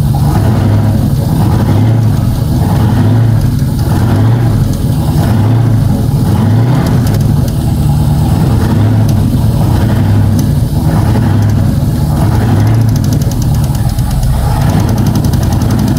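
Ford 460 big-block V8 running steadily, with a slow regular swell in its note about every second and a quarter. The engine is suspected of an intermittent lifter knock, which the owner later traces to cylinder 4 and fears could be a wiped cam lobe.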